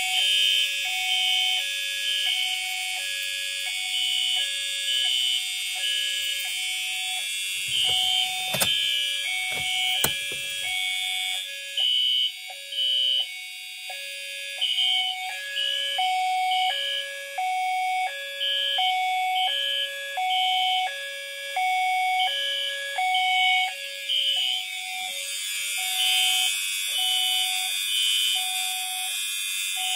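Fire alarm notification appliances sounding together in general alarm: an FCI HE8F horn on continuous, and a Siemens CHMCR chime-horn set to low-volume Code 3. The result is a steady buzzy horn under a repeating two-note pattern that alternates about once a second. A few low bumps and clicks come about eight to ten seconds in.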